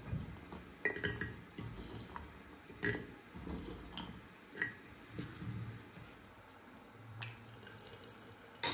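Small red berries dropped by hand from a wooden bowl into a glass teapot of loose tea: scattered light clicks and clinks about a second apart, with a louder knock near the end.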